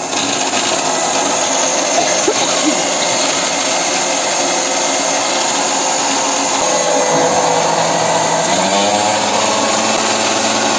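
Electric mixer grinder running continuously at speed, a steady loud whir from its motor and spinning blades, with the steel jar held down by hand.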